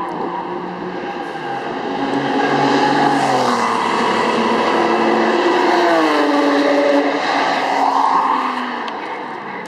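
A high-revving sports car engine on a race track, growing louder over several seconds. Its note drops in pitch twice, about three seconds apart, then fades near the end.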